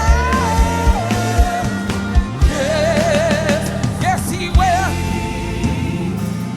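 Live gospel band playing, with steady bass and regular drum hits under a solo voice singing long, wavering melodic runs without clear words.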